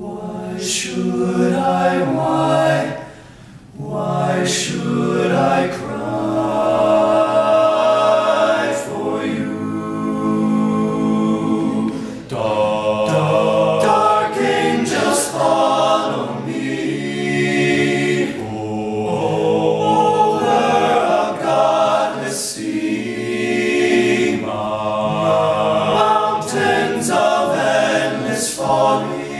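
All-male a cappella group singing in close harmony, several voices at once with no instruments. The voices break off briefly about three seconds in, then carry on loud and full.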